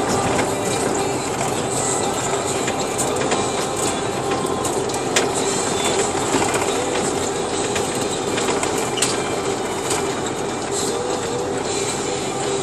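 Steady engine and road noise inside a moving truck's cab, with a constant low hum and frequent small rattles and clicks from the cab.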